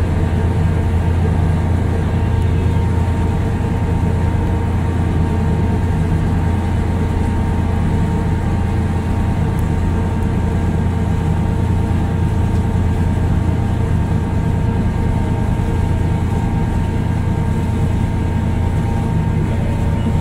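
JR Miyajima passenger ferry's engines running steadily under way, heard from the deck: a constant deep hum with faint steady higher tones over it.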